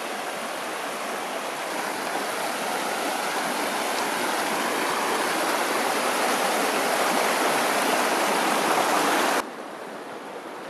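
The muddy Paria River rushing over rocks in a steady, even flow that grows slightly louder, then drops suddenly to a quieter rush near the end.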